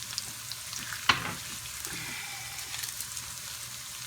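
Carrots and dehydrated crushed garlic frying in plenty of cooking oil, a steady sizzle with fine crackles, broken by one sharp knock about a second in.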